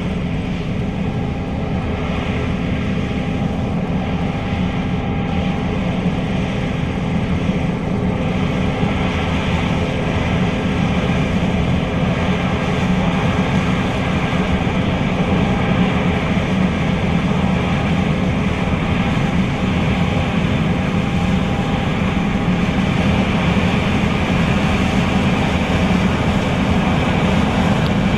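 John Deere S660 combine harvester running steadily while harvesting soybeans: a constant drone of engine and threshing machinery, gradually getting a little louder.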